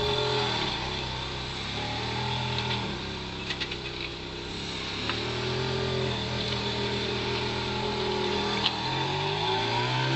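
Ferrari 430 Scuderia Spider 16M's V8 running at low revs as the car rolls past, its pitch holding and dipping with small throttle changes, then rising about nine seconds in as it pulls away.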